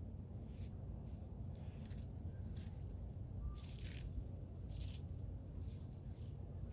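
Dry leaves being gathered and handled in the snow: several short, soft rustles and crunches spread over a few seconds, above a low steady rumble.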